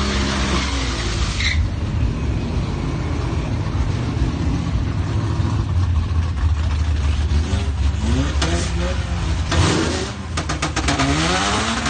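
Ford Mustang EcoBoost's turbocharged 2.3-litre four-cylinder running steadily at the drag-strip start line, then revved up and down a couple of times in the last few seconds, with a quick run of sharp cracks between the revs.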